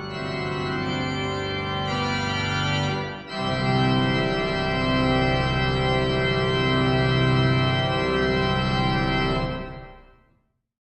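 Organ playing long held chords, with a brief break about three seconds in before a fuller, louder chord; the music fades out near the end.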